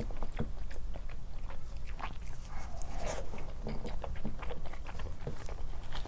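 Close-miked chewing and mouth sounds of a person eating soft food: irregular wet clicks and smacks.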